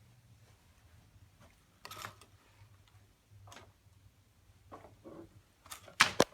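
A few scattered knocks and clicks in a small room, the sharpest and loudest one near the end.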